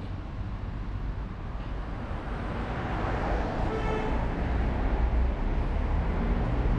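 Street traffic: a steady rumble of engines and tyres, swelling as a vehicle passes about halfway through.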